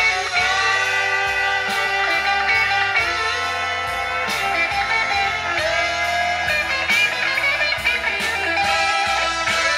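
Blues song led by electric guitar, played from a phone through a DIY single-ended tube amplifier (Soviet 6N3C power triode, 12AX7 driver) into an old Telefunken oval full-range speaker. Held guitar notes over a steady beat, with a wavering note near the end.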